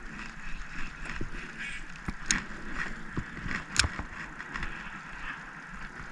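Faint steady outdoor background with a few sharp clicks and knocks, about four in all, the clearest ones around two and four seconds in.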